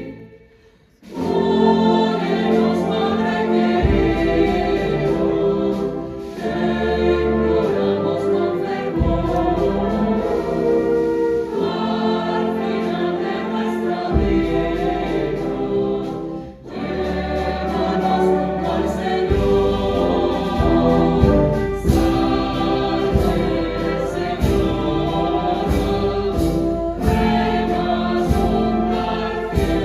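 Mixed choir singing a hymn with a concert band accompanying. The music dips briefly about a second in, then returns at full strength. In the last third, a steady pulse of strokes runs under the sustained chords.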